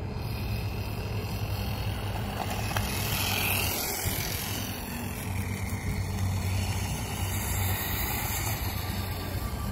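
Radio-controlled motorcycle driving on asphalt, its motor whining high and sliding up and down in pitch with the throttle, over a steady low rumble.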